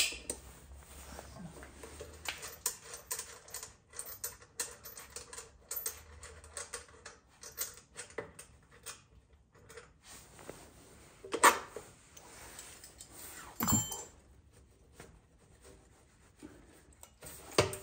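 Hand tools clicking irregularly as the clamp and mounting bolt of a Kawasaki Z900's stock exhaust silencer are loosened, with three louder metal knocks in the second half, the last near the end.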